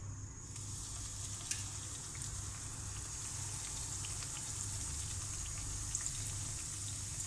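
Bread squares deep-frying in hot oil in a pan: a steady high sizzle that starts about half a second in, with scattered small crackles as the pieces are dropped in.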